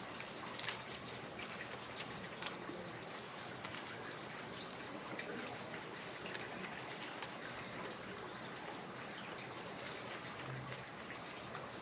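A steady, quiet trickle of running water, with a few faint clicks over it.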